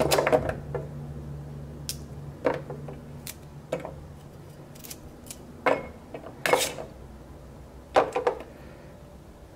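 Kitchen knife cutting a carrot into large cubes in the hand, the pieces dropping and clinking onto a stainless steel plate: a string of scattered, separate clicks and clatters with one slightly longer scrape about two-thirds of the way through.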